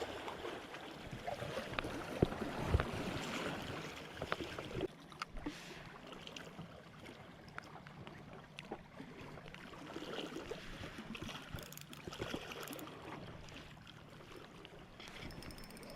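Water sloshing and lapping, with scattered small clicks and knocks throughout. It is louder for the first few seconds, then settles lower.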